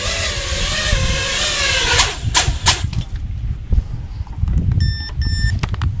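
Small FPV freestyle quadcopter's electric motors whining, the pitch wavering with the throttle, then stopping about two seconds in with a few sharp clacks. After that comes a low rumble, with two short electronic beeps near the end.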